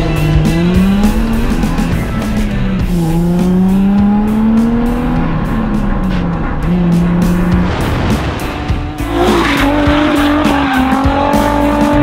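Nissan 350Z drift car's engine revving up and down through a drifting lap, with tyre squeal and a short rush of tyre and engine noise about nine seconds in. Background music plays underneath.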